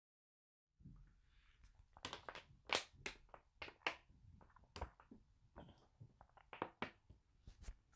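Thin plastic water bottle crackling and clicking as it is drunk from and flexes in the hand: an irregular run of sharp crinkles starting about a second in.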